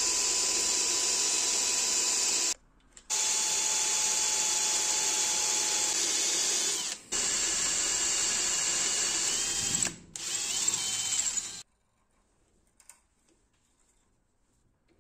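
Electric drill with a twist bit boring into a steel bar held in a vise, running steadily with a few brief breaks. The pitch wavers just before it stops, about three-quarters of the way through. Near silence follows, with a faint click.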